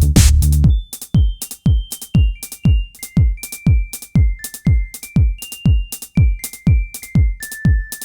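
Electronic music with a steady drum-machine beat of kick drums and hi-hats and a synth melody stepping from note to note.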